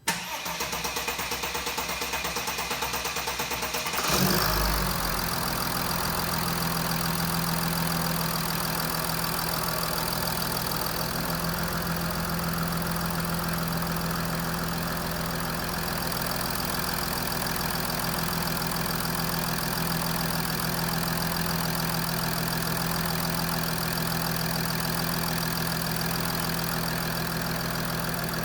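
Mercedes Sprinter's V6 diesel engine cranking for about four seconds, catching with a surge, then idling steadily. This is its first start after a new timing chain, tensioner and injector copper seals.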